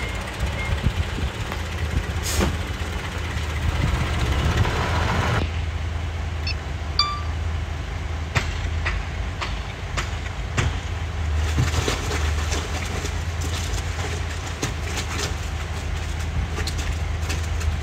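Radio-controlled model trucks working: a steady low drone with scattered clicks and knocks. A high hiss cuts off abruptly about five seconds in.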